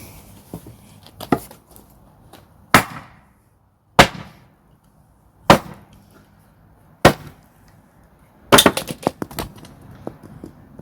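Hammer striking nails into a wooden plank: five single heavy blows about a second and a half apart, then a quick flurry of blows near the end.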